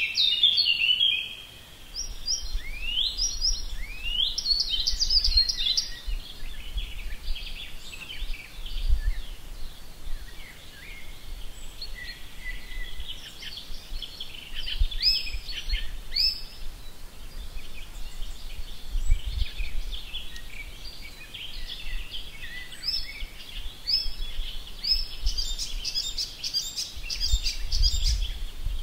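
Songbirds singing and calling together, a dense, unbroken mix of chirps and quick rising whistles, with a low rumble now and then.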